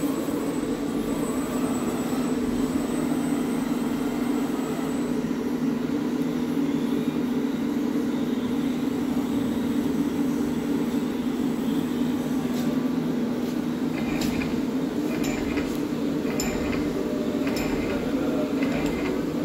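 Steady low mechanical hum of running machinery in a machine shop. From about two-thirds of the way in, a few short, light clicks sound over it.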